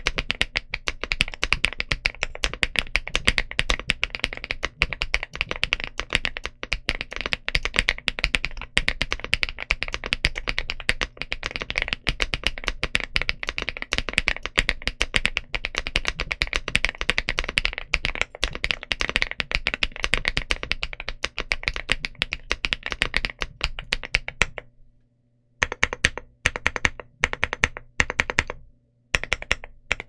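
Fast typing on KiiBoom Topaz linear switches in a stock Rainy75 keyboard with a polycarbonate plate and double-shot ABS Cherry-profile keycaps: a dense run of keystroke clacks. About 25 seconds in the typing stops for a moment, then comes back in short bursts of keypresses with brief pauses between them.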